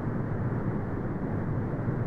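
Brown noise: a steady, deep, muffled rush with its weight in the low end and no treble, unchanging throughout.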